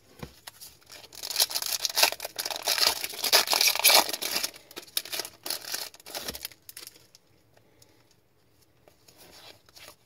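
Foil wrapper of an Upper Deck MVP hockey card pack being torn open and crinkled, loud and crackly for about four seconds. It gives way to softer rustling of the cards being handled, then goes almost quiet.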